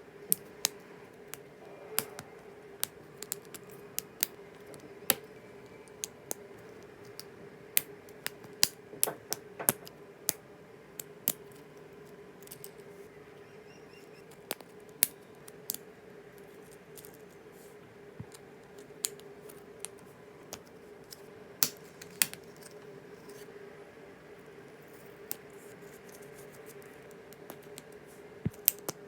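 LEGO Technic pieces clicking and snapping as they are handled and fitted together: irregular sharp clicks, some in quick clusters, over a steady faint hum.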